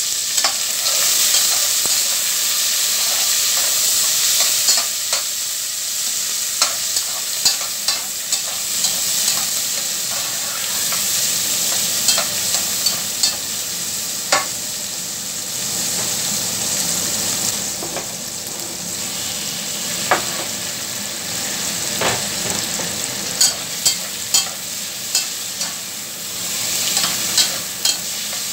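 Garlic and chopped tomato sizzling steadily in hot oil, with a utensil stirring and clicking against the pot at irregular moments, most often near the end.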